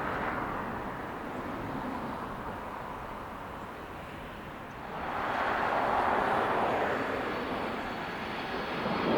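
Jet airliner engines, a steady rumble that swells about halfway through and then eases off again, with a thin high whine coming in near the end.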